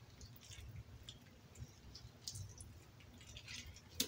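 Metal fork pulling apart saucy cooked chicken drumsticks on a plate: faint soft squishing, with one sharp click of the fork against the plate near the end.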